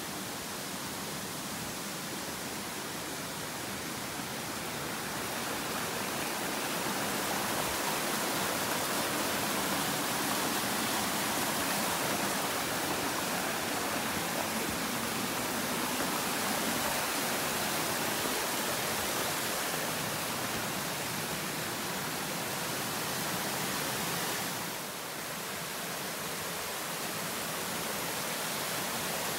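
Steady rush of a mountain stream or small waterfall cascading over rocks, swelling a little louder after a few seconds and dipping briefly near the end.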